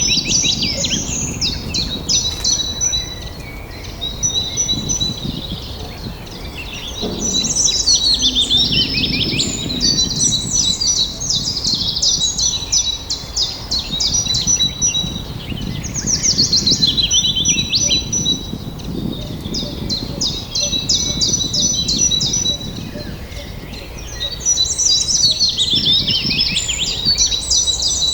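Songbirds singing: rapid trills and quickly repeated chirps, loud bouts returning every several seconds, over a steady low background rumble.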